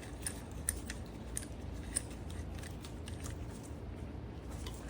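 Light metallic clicks of a steel C-clamp being fitted and worked onto a motorcycle brake caliper over the old pad, before pressing its pistons back. The clicks are scattered and sharp, most of them in the first two seconds, over a low hum.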